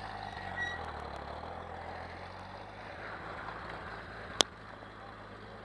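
A vehicle engine running steadily at low revs, with one sharp click about four seconds in.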